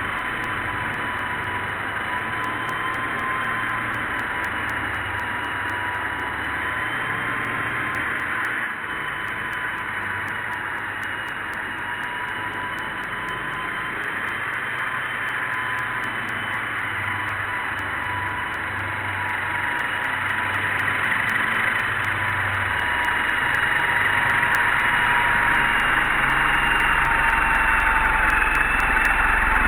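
RC ERA C138 Bell 206 1/33-scale micro RC helicopter in flight: its electric motors and rotors make a steady high whine over a rushing hiss. The pitch wanders slightly as the throttle shifts, and it grows louder over the last several seconds.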